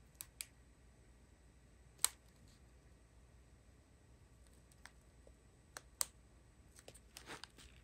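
Faint clicks and crinkles of a strip of sealed plastic bags of diamond-painting drills being handled. There are a few sharp ticks, a louder one about two seconds in and another about six seconds in, and a short flurry of crackles near the end.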